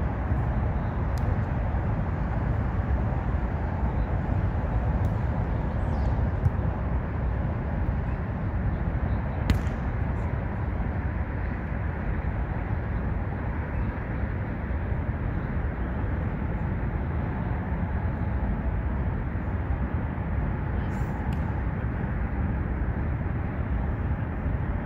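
Steady low rumble of traffic on the elevated highway overhead, with a few sharp slaps of a volleyball being hit, the clearest about nine and a half seconds in.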